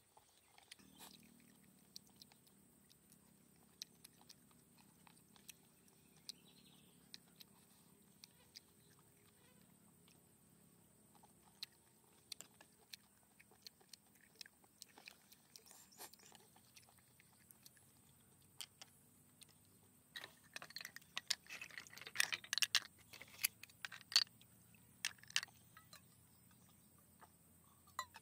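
A person eating with chopsticks: quiet chewing and mouth sounds, with scattered sharp clicks of chopsticks against a bowl. A denser run of clicks and smacking comes about two-thirds of the way through.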